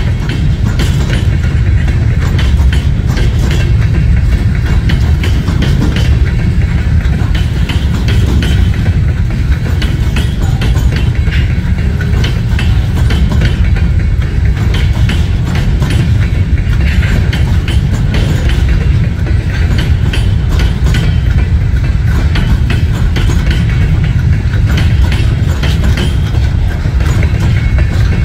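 Freight train of covered hopper cars rolling past close by: a steady heavy rumble with constant clicking and clanking of steel wheels over the rails.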